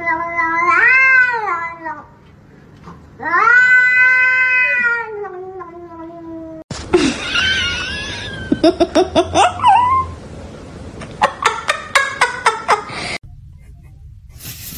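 A cat yowling in two long drawn-out calls that rise and fall in pitch, the second ending about six and a half seconds in. After it comes a different stretch of short squeaky sounds and sharp clicks.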